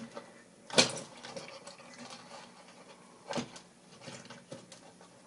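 Thin craft wire being twisted by hand around a small metal chain link: two short clicking rustles of wire and chain, about a second in and again about three and a half seconds in, with faint handling noise between.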